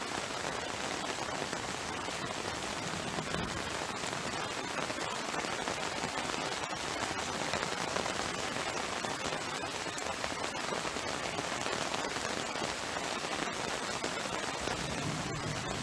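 Heavy tropical rain pouring steadily, with a dense, fast crackle of close raindrops striking hard surfaces.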